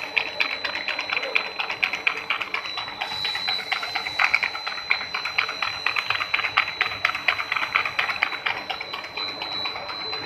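Corrugated pipe forming machine running: its mould blocks clatter with rapid, irregular clicking as they circulate along the corrugator track, over a steady high whine.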